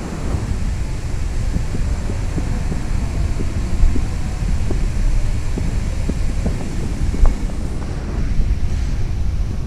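Steady low rumble and hiss of wind and handling noise on the microphone of a camera carried through a large, hard-walled station hall, with scattered faint knocks.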